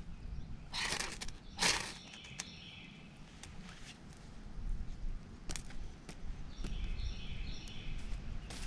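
Ferro rod scraped hard with a knife to throw sparks onto a pile of wood-shaving curls: two short rasping strokes in the first two seconds, the shavings catching after them.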